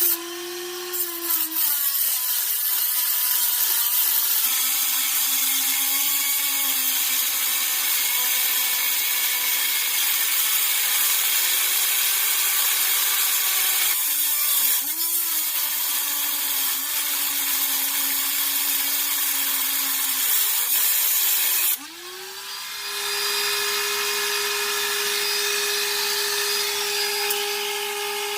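Dremel rotary tool with a cutoff wheel grinding through a seized steel exhaust bolt. The motor whine sags in pitch under load over a gritty grinding hiss. Near the end it stops for a moment, then spins up again higher and steadier.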